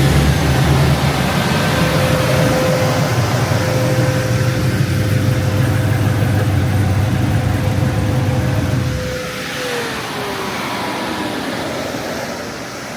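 Cammed Camaro V8 running steadily with a deep rumble and a steady whine. About nine seconds in the rumble drops away and the whine glides down in pitch as things wind down.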